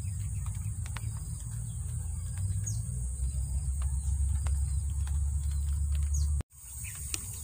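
Outdoor ambience: a steady high-pitched insect drone over a low rumble, with a few short, falling bird chirps. The sound drops out briefly about six and a half seconds in.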